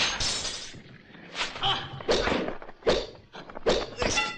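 Dubbed kung fu fight sound effects: a quick run of punch and kick thuds with whip-like swishes, pausing briefly about a second in before the blows resume.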